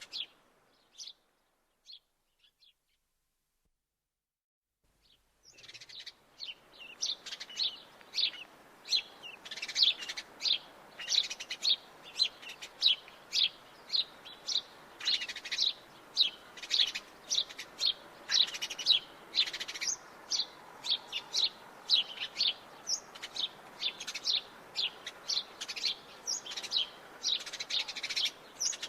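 Sparrows chirping: a few short chirps, then a pause of about four seconds, then from about five seconds in a busy, continuous chatter of quick repeated chirps.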